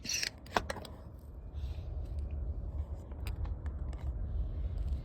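Toy foam-dart blaster being handled and worked: scattered sharp plastic clicks and clacks, a quick run of them between about three and four seconds in, over a steady low rumble.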